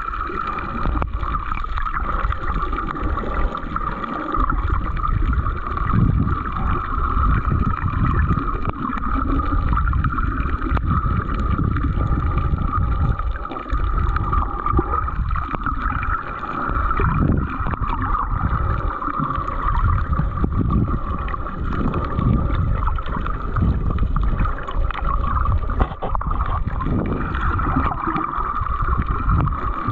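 Muffled underwater sound of moving sea water heard through a submerged camera: a continuous low rumble that swells and fades irregularly, under a steady high hum.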